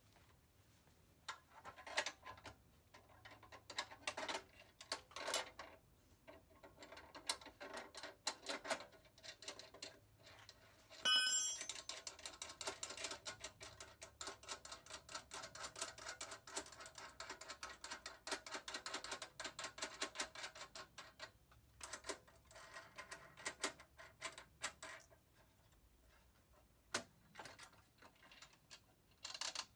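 Faint metallic clicks and clinks as lug nuts are worked onto the studs of a Jeep Wrangler's spare tire carrier, with a run of fast, even ratchet-like clicking lasting about ten seconds from near the middle. A brief ringing metal tone comes just before the fast clicking starts.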